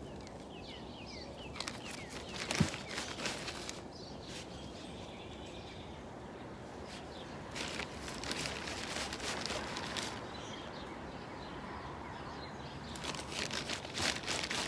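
Plastic bag of manure rustling and crinkling in three spells as handfuls are scooped out into pots, with one sharp click about two and a half seconds in.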